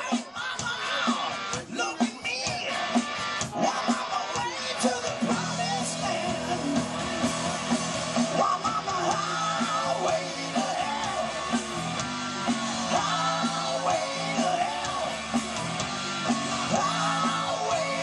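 Live rock band playing: electric guitars and drums with a man singing. A steady low bass line comes in about five seconds in.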